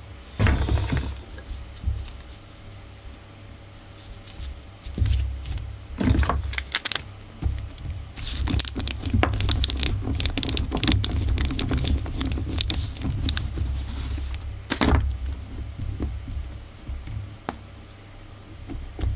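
Screwdriver turning the small cover screws of a Walbro chainsaw carburettor, with irregular metal clicks and scrapes and the rustle of work gloves handling the part. There is a dense run of small clicks in the middle and a sharper knock near the end.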